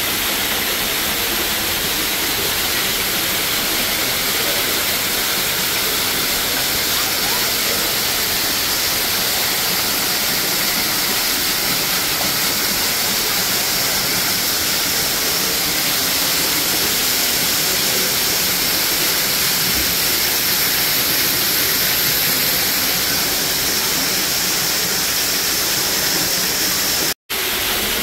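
Artificial biodome waterfall pouring steadily: a continuous, even hiss of falling water splashing down. The sound cuts out for a split second near the end.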